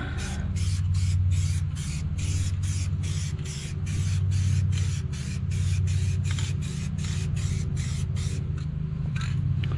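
Aerosol spray-paint can spraying a first coat of paint in short, rapid hissing bursts, about three a second, over a steady low hum.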